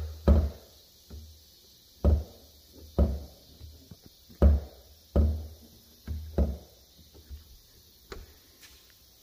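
About eight dull thumps and knocks at uneven intervals from the Ferrari 360's front trunk lid being worked by hand at its front edge to release its catch and open it.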